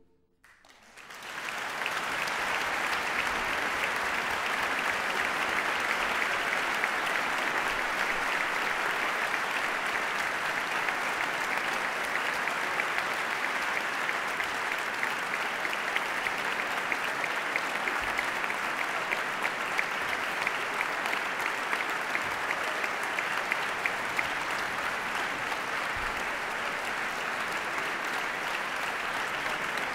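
Audience applause in a concert hall, starting about a second in and then going on as steady clapping.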